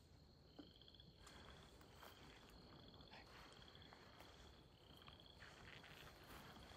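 Faint frog calls: short pulsed trills repeated about once a second, over a steady faint high tone, with a few soft footsteps.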